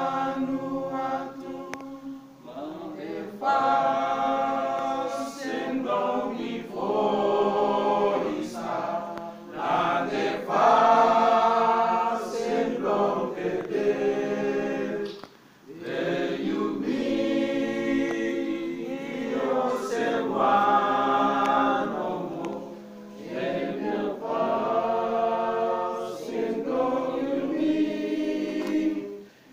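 A group of people singing together in chorus, in phrases a few seconds long with brief breaks between them.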